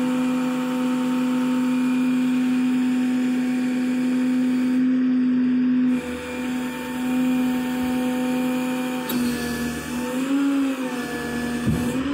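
Steady mechanical whine of the Ford F550 rollback's hydraulic pump running with the diesel engine, which wavers and rises in pitch for a moment near the end. A short low knock comes just before the end.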